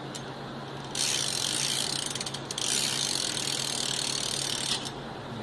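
BMX rear hub freewheeling as the back wheel is spun, its pawls clicking in a fast, loud, high ratcheting buzz. The wheel is spun twice, starting about a second in and stopping shortly before the end.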